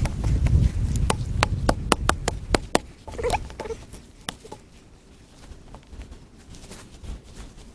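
A wooden digging stick jabbed over and over into dry, compacted soil to dig out a fire pit: a quick run of sharp knocks for about three seconds, then fainter scraping and scooping of loose dirt by hand.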